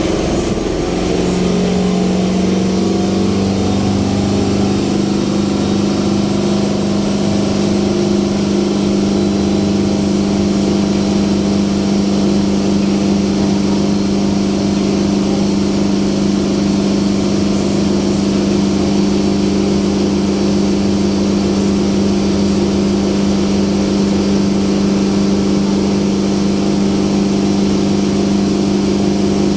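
Pasig River ferry boat's engine running steadily under way, its tone climbing to a steady pitch in the first second, over a constant rush of water and wind.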